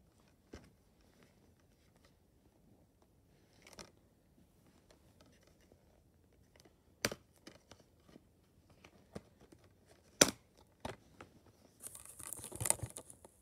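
Hands handling a plastic Blu-ray case: scattered light clicks and taps, two sharper plastic clicks about seven and ten seconds in, then a burst of scraping and clicking near the end.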